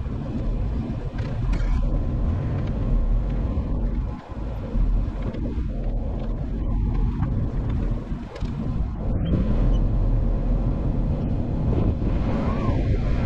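Off-road vehicle driving on the trail: a steady low rumble of engine and tyres with wind buffeting the microphone, in sped-up footage.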